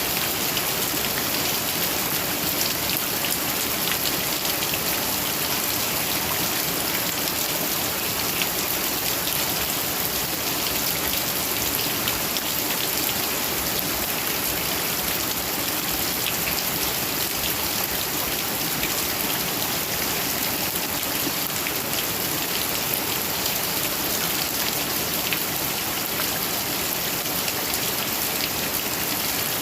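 Heavy rain falling steadily, a dense hiss of drops hitting surfaces with many small pattering ticks.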